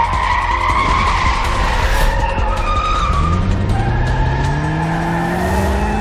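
A Ford Mustang's engine revving hard as it accelerates, its note climbing steadily through the second half, with tyres squealing.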